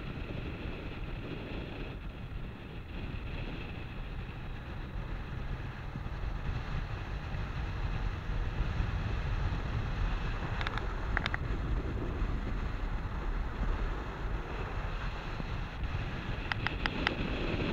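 Wind rushing over the microphone of a camera on a moving motorcycle, over a steady low rumble of engine and road. A few short clicks sound about ten seconds in and again near the end.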